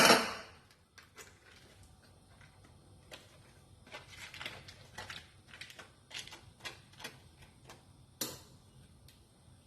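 A metal utensil clatters against a saucepan, then taps and clicks lightly and irregularly against the pan while cream cheese, milk and butter are worked together in it.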